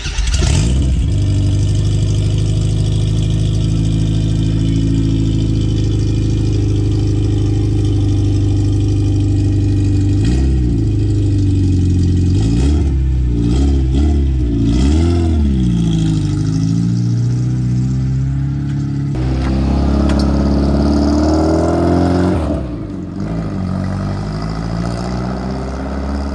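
Subaru engine swapped into a VW Beetle running at the exhaust just after starting: a steady idle, then several quick revs that rise and fall about ten seconds in. Later the car pulls away and the engine sound changes and fades.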